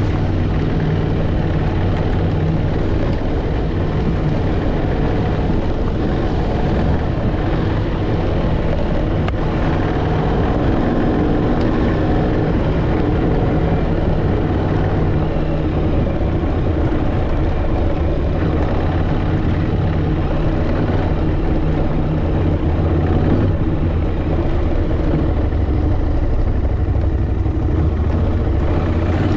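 Off-road motorcycle engine running steadily while riding a dirt track, its pitch staying fairly even throughout.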